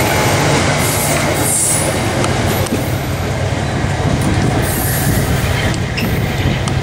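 Amtrak passenger train's stainless-steel coaches rolling past close by: a loud, steady rumble of steel wheels on the rails.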